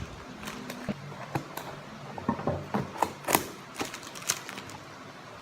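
A parcel box being handled and opened by hand: irregular clicks, taps and short rustles, the sharpest about three seconds in.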